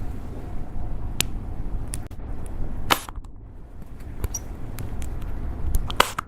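Slime being squeezed and stretched by hand, with a few sharp pops: about a second in, near three seconds and near the end, among fainter ticks, over a low rumble.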